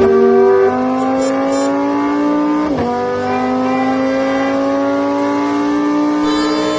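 Car engine accelerating, its pitch climbing steadily, with a short break and drop in pitch about three seconds in, like a gear change, before it climbs again.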